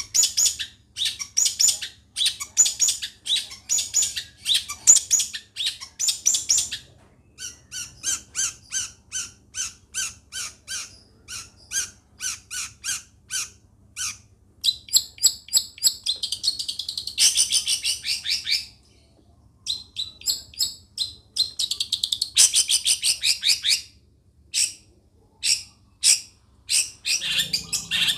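Long-tailed shrike (cendet) singing a long varied song. Fast runs of short high notes alternate with passages of scratchy chattering, broken by brief pauses.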